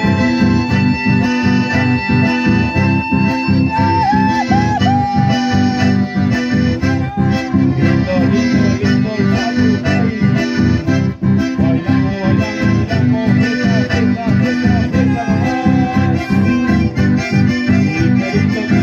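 Chamamé played live by two accordions and two acoustic guitars through a PA: the accordions carry the melody in long held and wavering notes over a steady strummed guitar beat.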